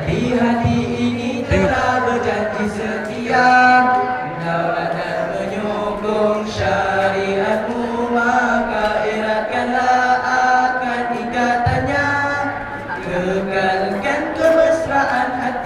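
Boys' nasyid group singing a cappella in harmony, several voices holding and sliding between notes together, amplified through handheld microphones.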